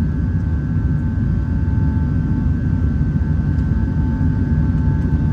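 Airbus A380 cabin noise: a steady low rumble of engines and airflow, with a faint steady whine above it.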